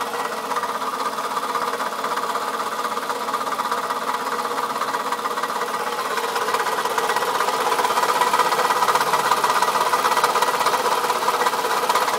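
2004 Toyota Camry engine running with a rapid, steady knock, which the owner takes for a bad piston. It grows a little louder past the middle.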